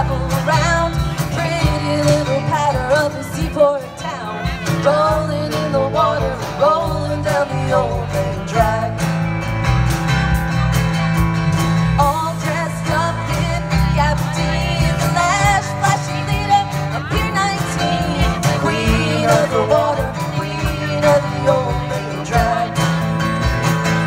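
Live rock band playing a song: a woman sings lead over strummed acoustic guitar, electric guitar, electric bass and a drum kit, amplified through a PA.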